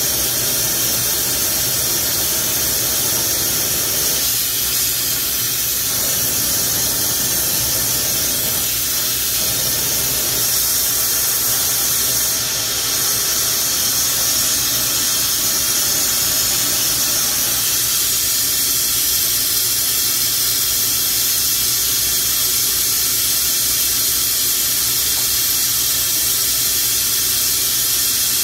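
Bench-mounted glassworking torch burning with a loud, steady hiss while glass is heated in its flame.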